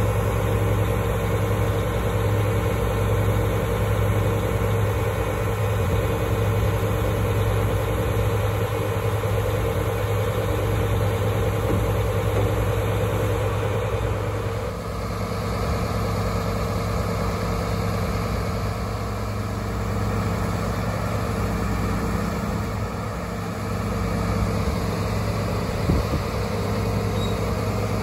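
Mercedes-Benz Actros truck's diesel engine idling steadily, with one short knock near the end.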